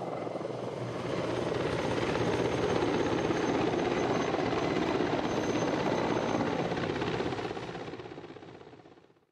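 Mil Mi-35 attack helicopter's rotor and twin turboshaft engines running, a dense rapid rotor beat that swells slightly and then fades out over the last two seconds.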